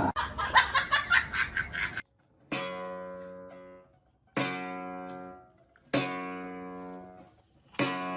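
Acoustic guitar: quick strumming for about two seconds, then four single chords, each struck and left to ring out and fade before the next.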